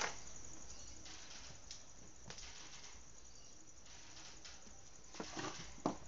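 Faint handling of a plastic desk fan: a few light clicks and taps of plastic parts, with a sharper click near the end.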